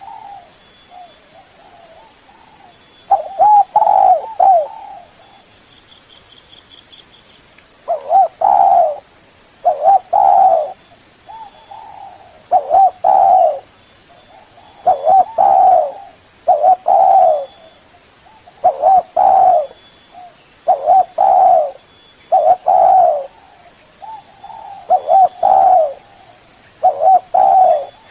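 Spotted dove (Spilopelia chinensis) cooing: repeated short multi-note coos, phrase after phrase about every two seconds, after a pause of a few seconds near the start.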